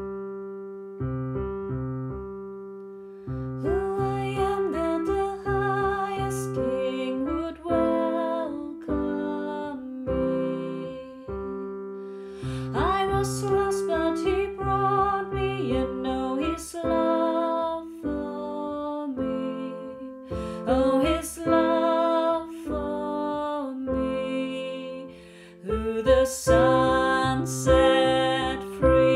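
Kawai piano playing a slow chordal accompaniment, repeated bass notes in the left hand under sustained right-hand chords. A woman's voice sings the melody along with it from about four seconds in.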